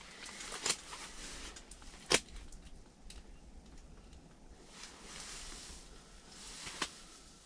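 Wind rushing, swelling and easing, with a low rumble on the microphone. Three short sharp clicks or knocks stand out, the loudest about two seconds in.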